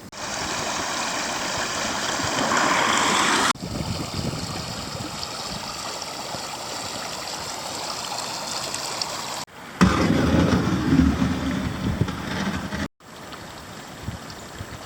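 Creek water rushing and splashing over riffles, a steady hiss that changes abruptly at a few cuts. For a few seconds in the second half, wind buffets the microphone with a gusty low rumble.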